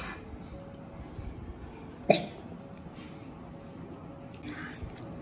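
A quiet room at a meal table, with a faint steady hum, a faint click at the start and one short sharp sound about two seconds in that drops quickly in pitch.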